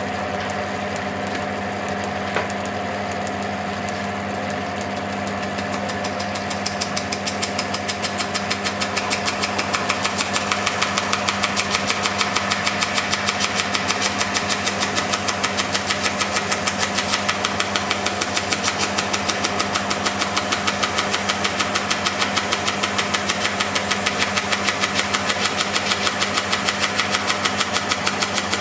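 Band saw running with a paper blade: a steady motor hum, with one click a little over two seconds in. From about six seconds in a rapid, even ticking joins the hum and keeps going.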